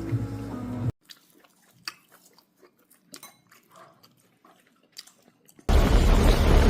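Background music cuts off about a second in, leaving near silence with faint scattered clicks. Near the end a loud, steady rumble and rush starts abruptly: a fishing boat under way.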